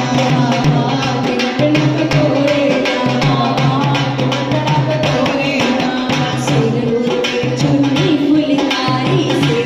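Women singing Punjabi sangeet folk songs into microphones, accompanied by a dholak hand drum beaten in a fast, steady rhythm.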